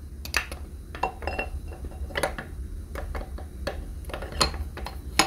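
Scattered metal clinks and knocks as a K20Z3 intermediate shaft is handled and fitted to a Honda K-series engine block. The sharpest knocks come near the end.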